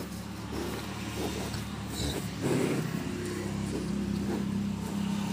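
A steady low mechanical hum, like an engine or motor running, growing louder about halfway through, with a short rustling burst in the middle.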